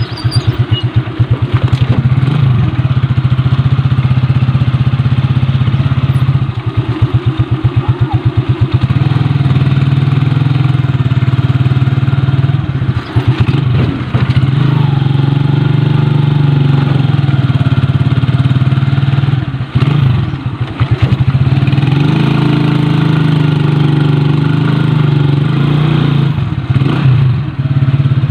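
Motorcycle engine of a tricycle (motorcycle with sidecar) running under way, heard from inside the sidecar. The engine note rises and falls as it speeds up and slows down. At a few moments it drops to a slow, even pulsing beat.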